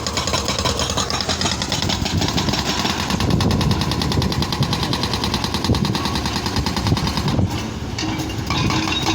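Excavator's diesel engine running, with a fast, even mechanical rattle over it; the sound dips briefly near the end, then comes back.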